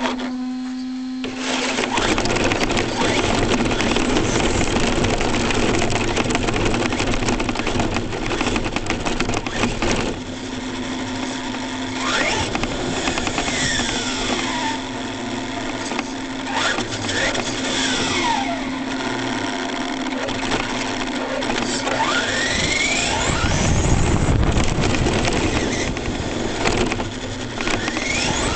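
ECX Torment RC short-course truck's brushless motor whining, its pitch rising and falling several times as the truck speeds up and slows, over a rushing of tyres on gravel and then asphalt, picked up by a camera mounted on the truck's roof.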